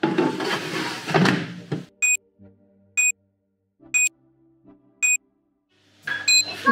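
Thomson dual-basket air fryer: a basket drawer slid shut with a scraping clatter, then the touch-panel control beeping once per button press, a short high beep about once a second.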